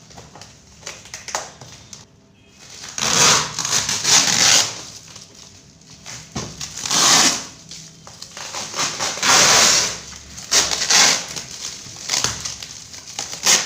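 Tightly packed shipping packaging being wrenched and torn open by hand. It comes in several loud rustling, tearing bursts with short pauses between them, and takes a lot of force.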